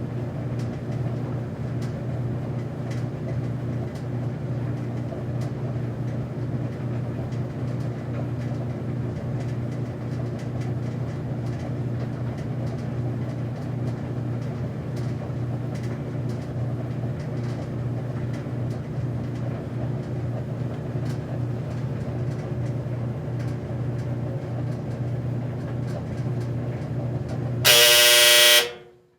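Laundromat washing machine/dryer running with a steady motor hum and the drum turning. Near the end, a loud buzzer-like tone lasts about a second, then the sound cuts off.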